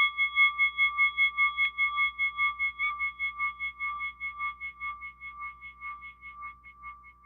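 A singing bowl ringing out after a strike, its tone wavering about five times a second as it slowly fades away.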